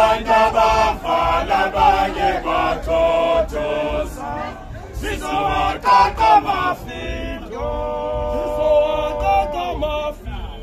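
Isicathamiya male a cappella choir singing in close harmony, with a long held chord about eight seconds in.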